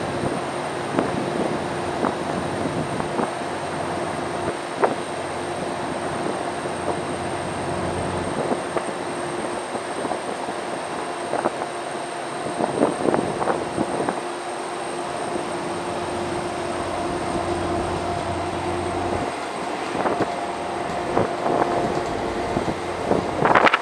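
Car ferry's engines droning steadily as it gets underway, with a constant low hum and a faint high whine, and scattered knocks and clanks from the vessel. A louder burst of rushing noise comes in near the end.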